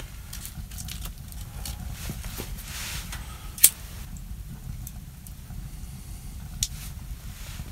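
Wood fire burning in a Winnerwell Nomad View tent stove: a steady low rumble with two sharp crackles, one about halfway through and one near the end.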